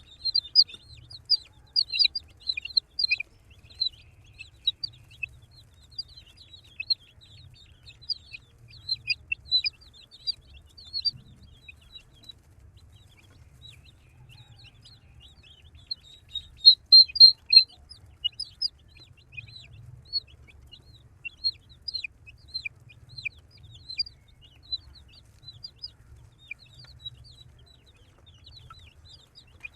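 A group of baby chicks peeping continuously: many short, high, downward-sliding cheeps overlapping, with a louder flurry about halfway through.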